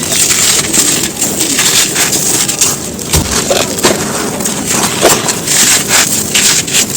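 Dry, brittle chunks of mud or cement being crumbled and crushed, a dense run of crunches and crackles with a few sharper snaps.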